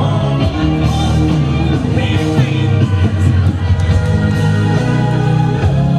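Loud music with singing and a steady beat: a pop-rock dance track.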